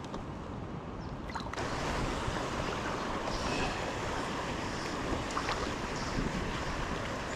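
Water of a small stream rushing steadily, growing louder about one and a half seconds in.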